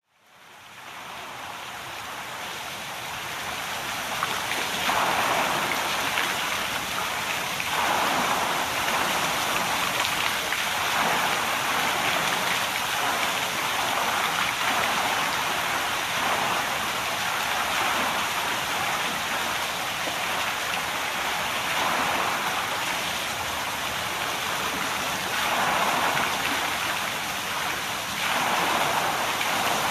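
Rushing water, a steady rush of noise that fades in over the first few seconds and swells now and then.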